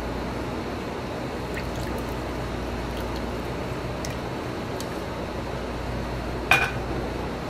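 Oat drink poured from a saucepan through a fine mesh sieve into a glass jar: a steady pouring and trickling sound with a few faint ticks, and one sharp clink near the end.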